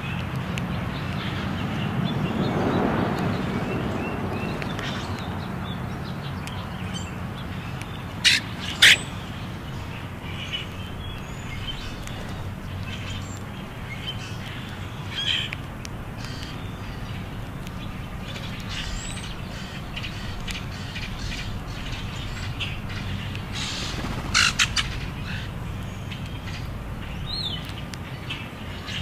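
Grackles feeding on scattered seed, giving scattered short, harsh call notes: a loud pair about eight seconds in and a quick cluster of three late on, with fainter calls between. Under them runs a steady low background rumble that swells briefly near the start.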